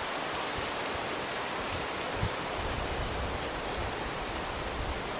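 Steady hiss of melting snow dripping off a roof, with a low, gusting rumble of wind on the microphone from about halfway through.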